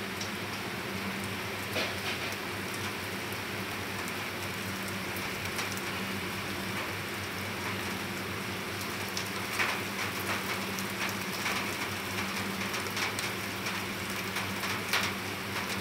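Heavy rain pouring onto a flat rooftop covered in standing water: a steady hiss with many sharp drop splashes and ticks, a few louder ones about ten seconds in and near the end.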